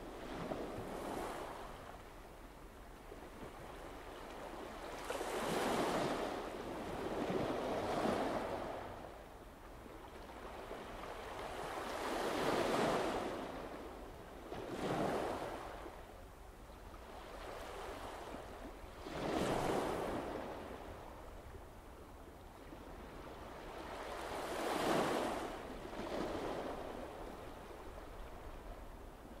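Sea waves breaking on the shore: a rushing hiss of surf that swells and dies away every few seconds, with no engine or voice over it.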